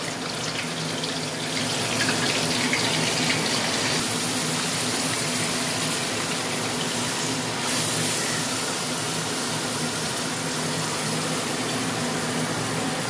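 Marinated chicken pieces sizzling in hot oil with whole spices in a kadai as they are tipped in; a steady frying hiss, louder for a few seconds in the middle.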